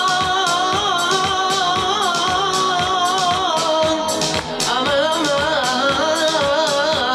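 Dance music: a singer's melody with long held, wavering notes over a steady, regular beat, with a new sung phrase starting about halfway through.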